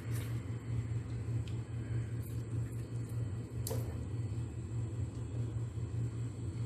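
A steady low hum, with a few light knocks as vegetables such as a tomato and a garlic bulb are set by hand into a steel pot of raw mutton; the sharpest knock comes a little past halfway.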